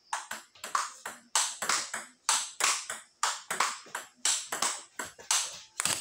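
Table tennis ball in a fast, steady rally, clicking off the paddles and the table about three times a second.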